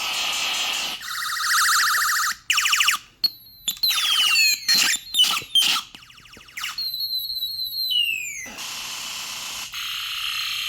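Circuit-bent toy space gun built around a "Space War" sound chip, playing a string of retro video-game space effects through its speaker. It opens with a hiss of noise and a pulsing electronic tone, then a run of quick falling laser zaps, a stepped falling tone, and another hiss near the end.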